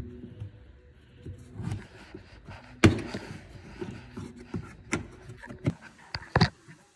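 Plastic car bumper cover being wrenched free from its expanding plastic rivets: scattered knocks and clicks of the plastic panel and clips with muffled handling between them, the sharpest knock about three seconds in and a few more toward the end.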